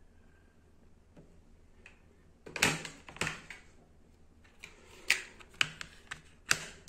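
Plastic MiniDisc cases and packaging being handled: quiet at first, then a cluster of knocks about two and a half seconds in and several sharp clicks near the end.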